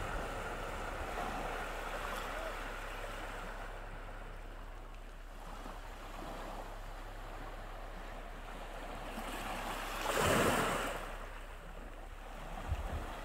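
Sea waves washing on the shore in a steady surf hiss, with one louder wave breaking about ten seconds in. Wind buffets the microphone near the end.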